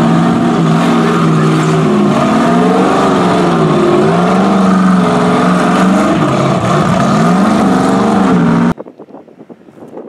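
Ultra4 unlimited-class race car's engine revving hard as it climbs over boulders, its pitch rising and falling repeatedly as the throttle is worked. The engine sound cuts off abruptly near the end.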